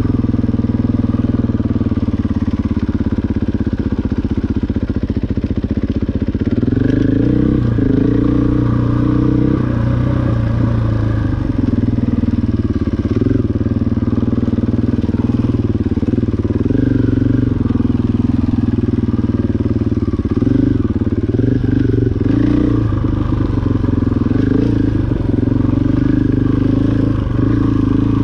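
KTM 500 dual-sport dirt bike's single-cylinder four-stroke engine, running steadily at low revs for the first few seconds, then revving up and down repeatedly as the bike is ridden.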